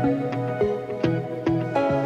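Instrumental background music: a calm tune of single notes struck at an even pace, about two or three a second, each ringing on.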